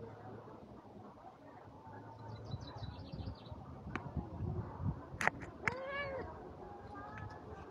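A cat meows once, a single call that rises and falls in pitch, about six seconds in, after a few sharp knocks and rustles close by.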